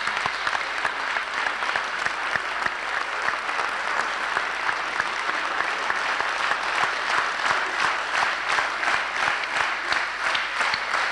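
Audience applauding after the performance, then falling into steady rhythmic clapping in unison about halfway through.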